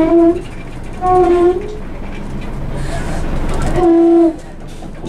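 Inside a moving Ikarus EAG E94 bus on a Scania chassis: steady engine and road rumble, with three short pitched tones of about half a second each, at the start, about a second in and about four seconds in.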